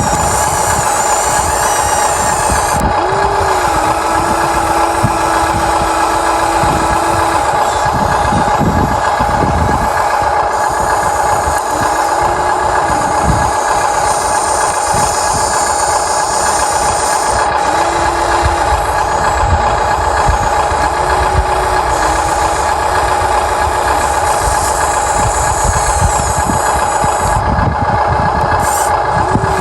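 Huina 1593 radio-controlled excavator's electric motors and gear drives whining steadily while digging, with short rising and falling motor tones each time a boom, arm or bucket movement starts and stops.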